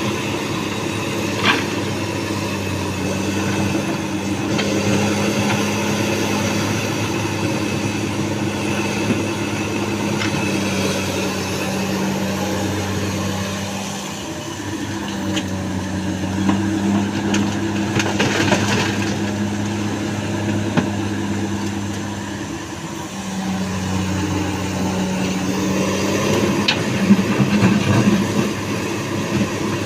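Komatsu excavator's diesel engine running under hydraulic load, its hum swelling and easing as the machine works, with a few clanks and knocks as sandstone is dug and loaded.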